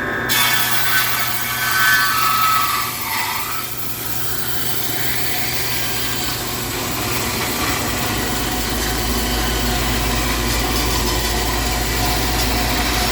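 Old Powermatic 12-inch table saw ripping thick solid walnut at full blade depth: a steady, loud cutting noise. A whine sinks in pitch over the first few seconds as the blade works through the wood, and a low hum joins about eight seconds in.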